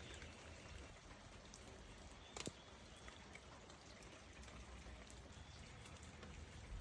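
Faint light rain: soft scattered drop ticks over a steady hiss, with one sharper tick a little over two seconds in.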